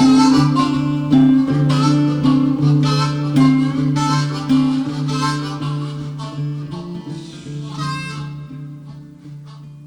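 Background music: harmonica over acoustic guitar, the instrumental outro of a song, fading out gradually.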